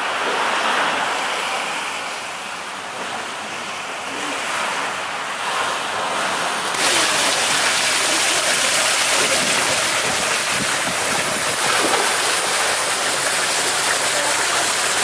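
Gentle surf washing onto a sandy beach with some wind. About seven seconds in, it changes suddenly to a louder, steady hiss and splash of water pouring off a wall into a swimming pool.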